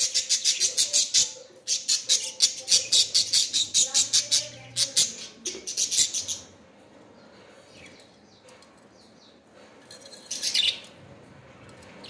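Budgerigars chirping: a fast run of short, high chirps at about five or six a second that stops about six seconds in, then one short burst of chirps near the end.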